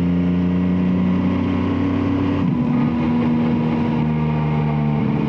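Yamaha Tracer 9's 890 cc inline three-cylinder engine running under way through an Akrapovic exhaust, at a steady, slightly falling pitch, with a brief break in the note about halfway through before it settles again.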